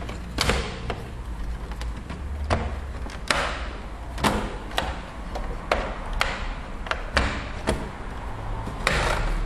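PlayStation 3 upper case being fitted back onto the console: a dozen or so irregular plastic clicks and knocks as the cover is set in place and pressed down, the loudest a little over three seconds in and near the end.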